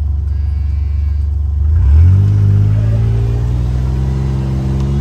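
A vehicle engine running at a steady low rumble, then accelerating about two seconds in, its pitch rising steadily as it picks up speed.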